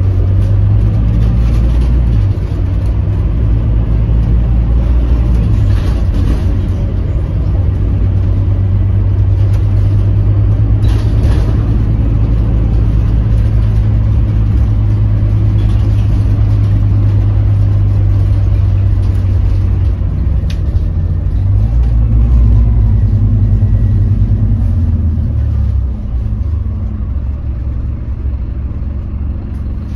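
Scania K310UB city bus heard from inside the passenger saloon: its engine runs steadily with a low rumble as the bus drives along, swelling about two-thirds of the way through and easing off near the end, with a few faint knocks and rattles.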